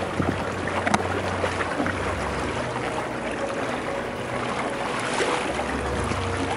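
Water rushing and splashing along the hull of a small sailing dinghy under way, with wind rumbling on the microphone and a small knock about a second in.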